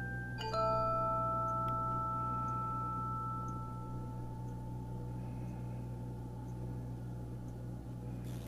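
Background music: a chord of bell-like struck notes about half a second in, ringing on and slowly fading, over a steady low hum.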